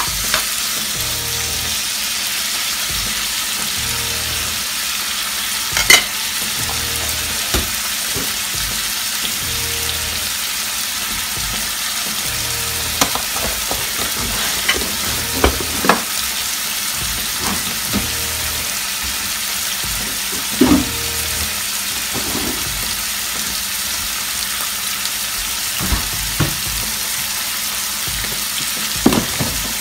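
Zucchini noodles and sauce sizzling steadily in a frying pan as their released water cooks off, with occasional sharp clicks, the loudest about six seconds in.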